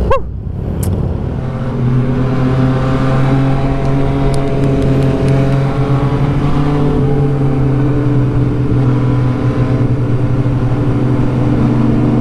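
MV Agusta Superveloce 800's three-cylinder engine under way. The revs sweep up and drop away at the very start, the sound dips briefly, and then from about two seconds in the engine pulls at a steady, even pitch with a rushing noise underneath.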